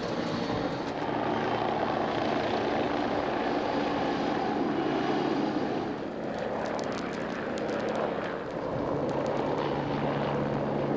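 Helicopter engine and rotor running steadily, a continuous drone with no letup.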